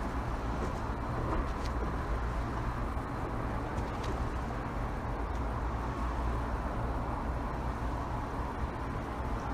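Steady outdoor background noise with a low rumble, and two faint clicks about one and a half and four seconds in.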